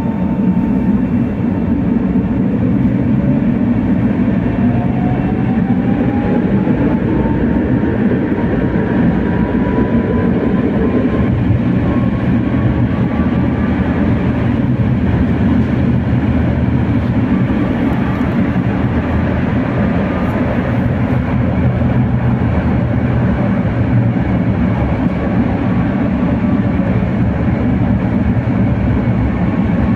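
Tatra T3R.PLF tram running on its rails, with steady rolling noise and a whine from the electric drive that rises in pitch over the first dozen seconds as the tram picks up speed.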